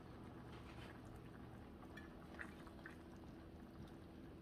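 Faint simmering of a crumbled pecan and vegetable mixture in a stainless steel skillet, with a few soft clicks of a wooden spoon stirring it, about two to three seconds in.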